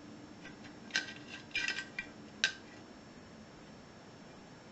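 Light metallic clinks and rattles of a vintage padlock and its key being handled: one clink about a second in, a quick cluster of clinks just after, and a single sharper clink near the middle.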